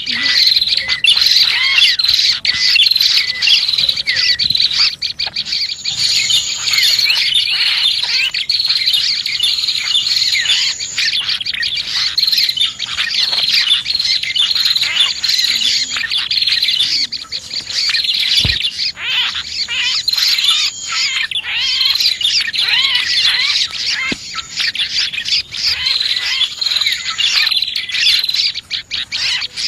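Dense, continuous chirping and twittering of prinias (prenjak) and other small songbirds, as used in a bird-lure call recording, with a thin high tone that comes and goes several times.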